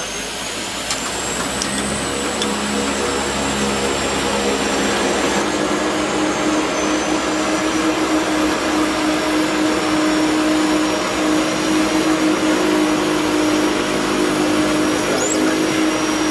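Jet airliner engines heard from inside the cabin: a steady roar with a high whine and a low hum, growing louder over the first several seconds and then holding steady.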